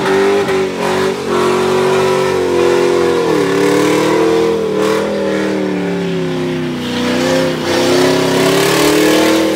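A car engine running at high revs, holding a steady pitch that dips briefly about three seconds in and climbs back.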